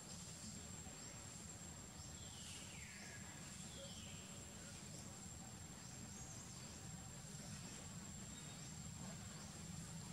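Quiet outdoor ambience: a steady high insect whine with faint repeating high chirps over a low rumble. Two falling whistled calls come about two and three and a half seconds in.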